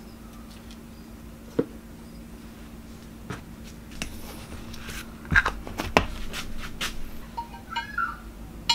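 Steel vice parts handled on a workbench: a few single clicks, then a run of sharp metal knocks and clinks about five to seven seconds in, as a jaw plate is set onto the vice's jaw.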